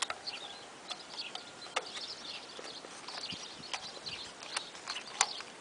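Outdoor background with small birds chirping in short high calls, and a few sharp clicks or taps, the loudest about two and five seconds in; the engine is off.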